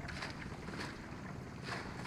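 Water splashing and lapping around a swamped outrigger canoe in a few short splashes, over wind noise on the microphone.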